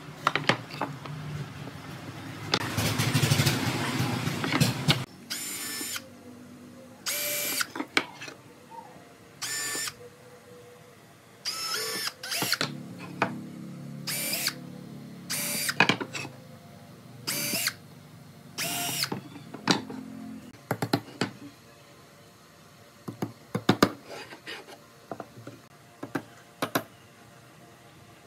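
Cordless drill spinning up in about eight short bursts, drilling holes into pine boards, after a longer, rougher run in the first few seconds. Scattered light knocks on the wood follow near the end.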